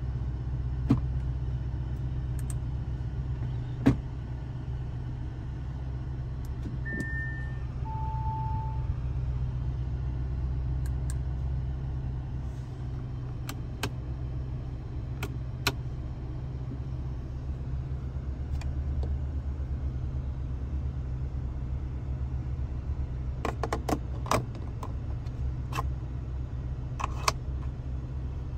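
Steady low drone inside the cabin of a 2023 Audi RS7 on the move, from its 4.0-litre twin-turbo V8 and the road, with scattered light clicks and rattles. About seven seconds in there is a short two-note chime, the second note lower.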